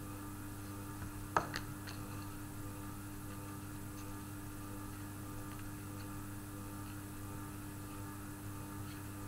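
Steady electrical mains hum throughout, with two short taps about one and a half seconds in as a tarot card is set down on the table.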